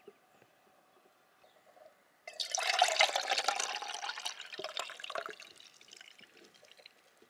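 Freshly squeezed orange juice pouring from a plastic juicer jug into a stainless steel mug. It starts suddenly about two seconds in, is strongest at first, and tapers off over the next three seconds or so.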